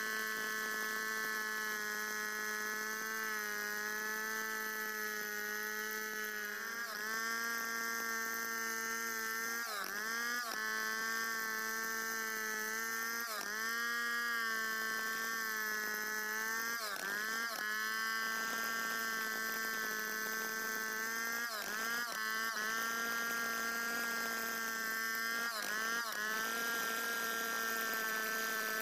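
Large two-stroke chainsaw running at full throttle, ripping lengthwise through a santol log in a freehand milling cut. Its steady high whine dips briefly in pitch every three to four seconds as the chain bogs under the load of the cut.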